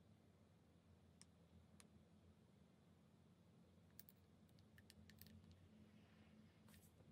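Near silence with faint, scattered small clicks from handling small plastic miniature toy pieces, including a quick cluster of them about four to five seconds in and a brief soft rustle near the end.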